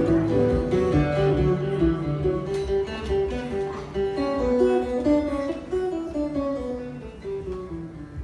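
Acoustic guitar playing the closing bars of a song live, its notes dying away near the end.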